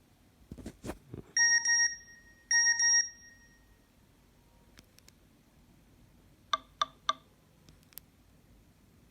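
Nokia N73 mobile phone beeping: two pairs of short electronic beeps about a second apart, then three quick short beeps a few seconds later. A few light knocks come just before the first beeps.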